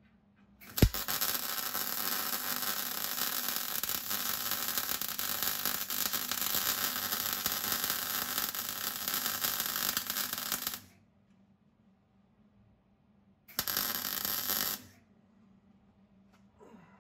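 MIG welder arc welding a sheet-metal floor seam: a sharp click as the arc strikes, then a steady weld of about ten seconds, and a second short burst of about a second near the end.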